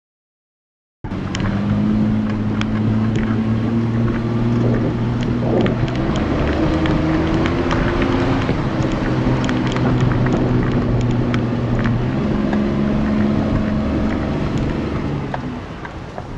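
Off-road vehicle engine running steadily under load, with scattered clicks and knocks over it. It starts abruptly about a second in.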